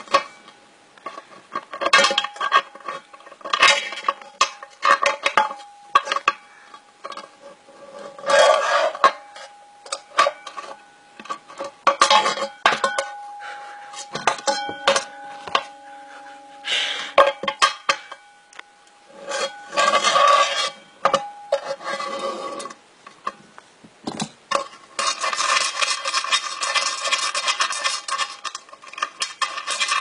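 Electric fire alarm bells, a 10-inch Wheelock and a 6-inch Notifier, clanging and rattling in irregular bursts, the gongs ringing on between strikes, as a gong is worked loose while its hammer keeps hitting it. Near the end a bell rings continuously in a fast, unbroken clatter.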